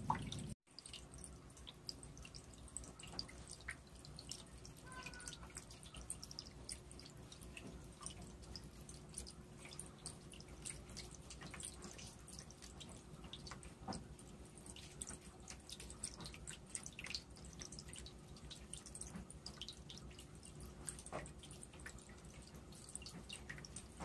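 Small vivarium waterfall running: water trickling and dripping down the foam-rock background into the pool below, heard as a faint patter of many small drips, with a faint steady hum underneath.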